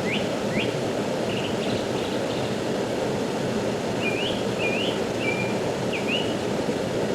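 Steady rushing of a river. Over it, a small bird gives short, rising chirps in quick runs near the start and again in the middle.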